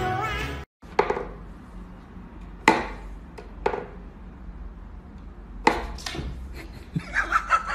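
Hollow wooden knocks and taps from a wooden whack-a-mole cat toy as its pegs are pushed up through the holes and a cat paws at them. They come as single sharp knocks with pauses between, then a quicker run of taps near the end.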